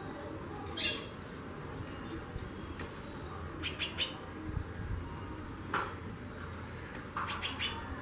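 Female white-bellied seedeater (chorão) calling in its cage with short, sharp chips, one about a second in, then quick clusters of two or three near the middle and near the end. This calling ('xaxando') comes from a female in breeding condition. A steady low hum runs beneath.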